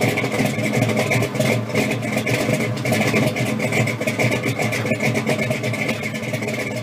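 A loud car engine running steadily, with a rough, crackling sound.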